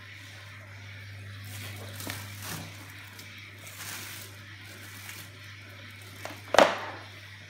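Plastic wrapping rustling as the wrapped parts of a steam cleaner are handled, over a low steady hum, with one sharp knock near the end that is the loudest sound.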